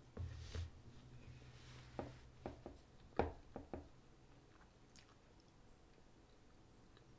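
A person chewing a mouthful of soft tamale: a run of short clicks over the first four seconds, the loudest a little past three seconds, then it goes quiet.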